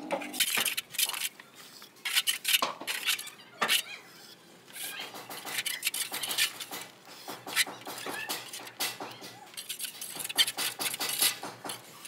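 Steel trowel scraping cement render and clinking against a steel box-section straightedge held to the wall, in short irregular strokes.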